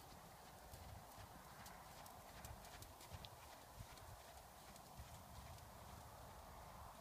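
Faint, irregular hoofbeats and light clicks of a Thoroughbred gelding trotting on a sand arena surface.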